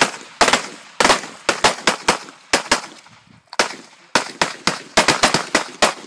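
Several handguns firing on a firing line: about two dozen sharp shots, irregular and sometimes overlapping, with a brief lull a little past halfway.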